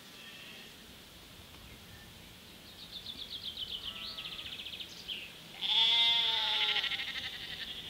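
Sheep bleating: a faint, fast-quavering call about three seconds in, then a loud, long, wavering bleat about six seconds in.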